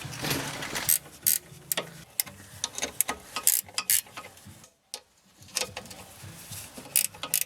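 Ratchet wrench clicking in short irregular spells, with metal tool clinks, as the bolts of a new wheel hub are tightened during reassembly.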